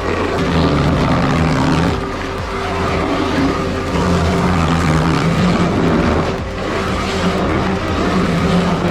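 Stump grinder's engine running hard and steadily while its cutting wheel works, with brief dips in loudness a couple of times.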